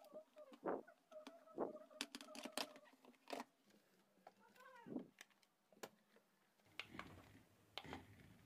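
Faint scattered plastic clicks and taps as a toy RC car's battery cover is handled and closed, over near silence. A faint high call sounds in the background about five seconds in.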